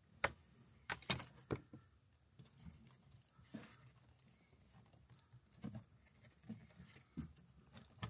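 Faint, irregular clicks and knocks of hands working a rubber vacuum hose and its plastic connector off a car's purge valve.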